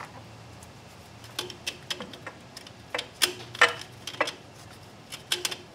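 Scattered light metallic clicks and clinks, about ten over a few seconds and the loudest about three and a half seconds in, as a steel plate is slid onto the splines of a 1995 Harley Sportster's clutch pack.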